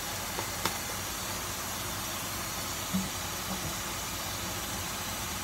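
Diced chicken, corn and vegetables sizzling and steaming in a saucepan on the stove, a steady hiss. A few faint clicks sound near the start, and a soft knock about three seconds in.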